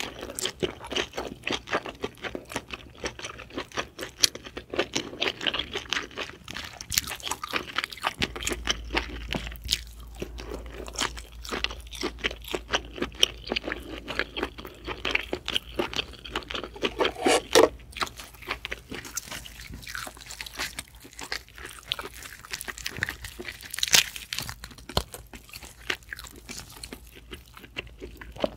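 Close-miked chewing of steamed giant scallop meat: a steady run of wet mouth clicks and smacks, with a few louder sharp clicks.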